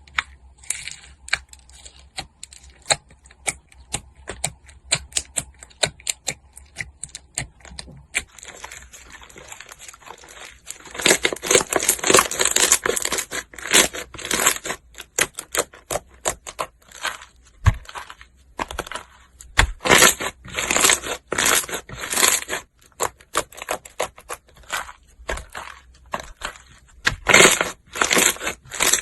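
Slime being squished and pressed, making a quick run of sticky clicks and pops, then from about a third of the way in a louder, denser crackling squish in uneven pulses.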